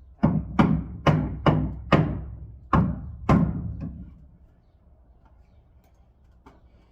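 Seven heavy knocks at uneven intervals over about three and a half seconds, each ringing out briefly, then they stop.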